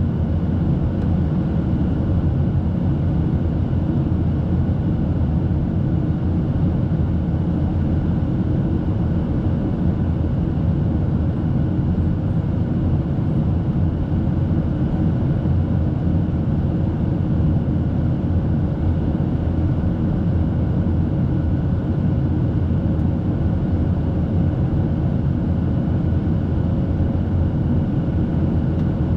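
Boeing 737-800 in flight, heard from inside the cabin: a steady roar of its CFM56 turbofan engines and the rushing air along the fuselage, with a few faint steady tones riding over it.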